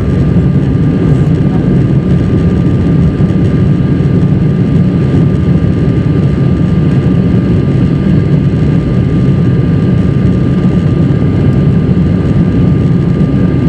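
Cabin noise of an Embraer 190 climbing out after takeoff: its two General Electric CF34-10E turbofans and the rushing airflow make a loud, steady low rumble, with a faint steady whine above it.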